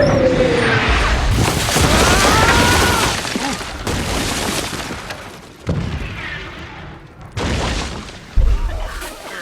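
Aerial bombs exploding one after another: heavy booms with crashing, shattering debris. Fresh blasts strike about a second and a half in, then near six, seven and a half and eight and a half seconds; the last is the sharpest.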